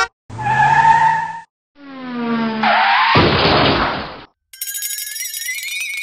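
Cartoon vehicle sound effects: a short blast, then a sound falling in pitch that runs into a tyre skid. A bright musical jingle starts about four and a half seconds in.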